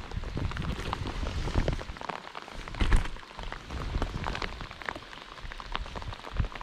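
Steady rain falling on a pond's surface, with scattered small taps and one louder knock about three seconds in.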